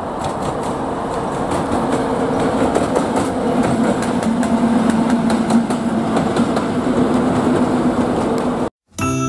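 ChME3T diesel shunting locomotive running light past: a steady diesel drone over loud running noise, with wheels clicking over the rail joints, growing louder as it goes by. It cuts off abruptly near the end.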